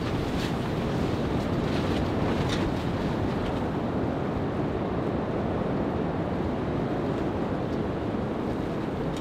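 Strong storm wind blowing steadily against the tent, with a few faint sharp ticks in the first three seconds.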